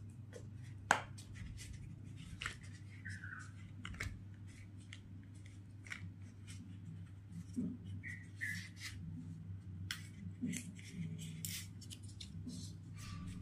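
Banana leaves rustling and crinkling as they are folded into parcels around a sweet grated-cassava filling, with a spoon scraping and tapping a plastic bowl. The clicks and rustles come irregularly over a steady low hum.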